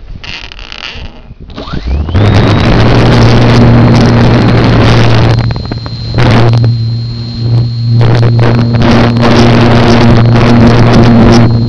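Electric motor and propeller of a Slow Stick RC plane, heard from a camera on board: it spins up with a rising whine about two seconds in, then runs at high throttle as a steady buzzing whine under loud wind rush over the microphone. The level dips twice around the middle.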